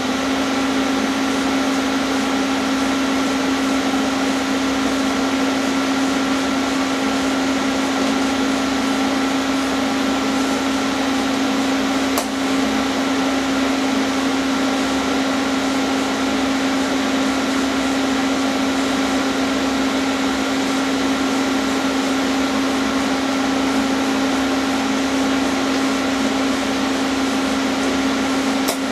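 TIG welding arc burning steadily, a constant hum over a hiss as filler rod is fed in. There is a short dip about twelve seconds in, and the arc stops near the end.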